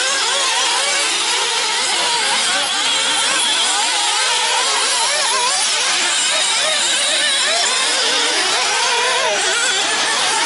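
Several small nitro engines of 1/8-scale RC buggies racing, their overlapping pitches constantly rising and falling as the buggies speed up and slow down through the turns and jumps.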